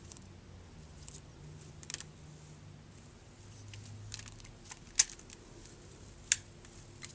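A budgie bathing, making a scattering of short sharp taps and small splashes, with two louder clicks about five and six seconds in.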